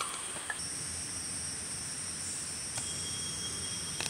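Rainforest insects at dusk, chirring in steady high-pitched tones; a second, lower insect tone joins about half a second in, with a few faint clicks.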